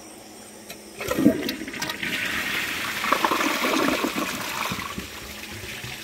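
Kohler Embrook toilet flushing: a faint click, then water rushing into and draining from the bowl for about four seconds, easing off near the end.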